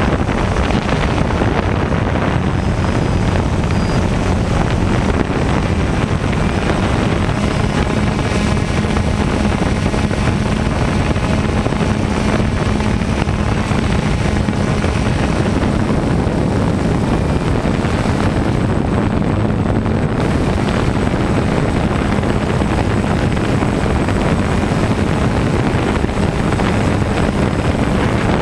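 DJI Phantom 1 quadcopter's four electric motors and propellers buzzing steadily in flight, picked up close from the camera riding on the drone itself. The sound is a loud, even hum over a dense rushing noise, with no breaks.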